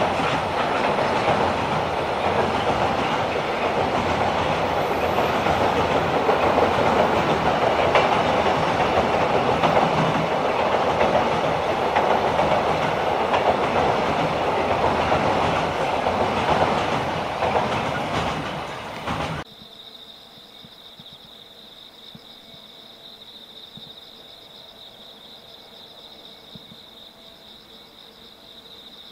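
Freight container wagons running over a railway bridge, a loud steady rumble with clickety-clack of wheels on rail joints. About 19 seconds in it cuts off abruptly, leaving insects chirping steadily.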